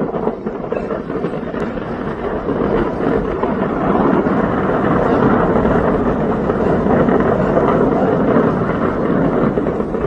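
Steady rushing roar of a large fire burning, building slightly over the first few seconds and then holding.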